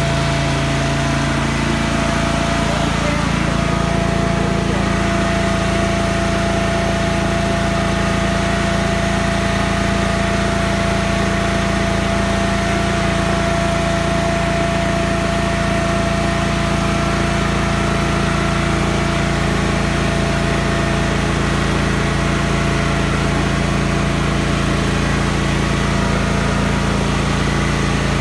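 Engine of a Toro compact utility machine running steadily at a constant speed, with a slight shift in its note in the first few seconds.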